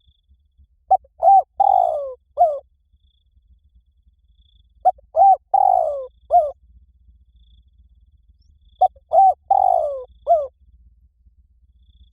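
Spotted dove cooing its 'liu tan' style song: three identical phrases about four seconds apart. Each phrase is a quick run of short coos with a longer falling coo near its end.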